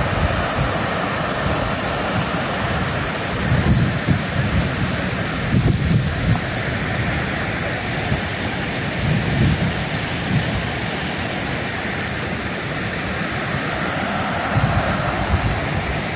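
Muddy flash-flood water rushing steadily across a field and over dirt berms. A few low rumbling surges sound through it.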